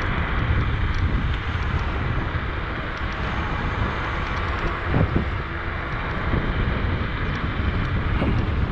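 Wind buffeting the microphone, a steady rushing noise over a low rumble, with a faint knock about five seconds in.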